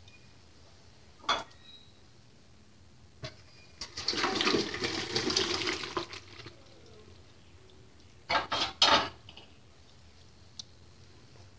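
Boiled penne and its cooking water poured from a metal pan into a perforated steel colander: a splashing rush of water lasting about two seconds. A metal knock comes before it, and a few clanks of the pans follow near the end.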